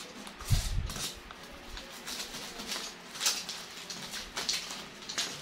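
Bubble-wrap packaging crinkling and rustling in irregular bursts as it is handled and cut open with a box cutter, with a dull bump about half a second in.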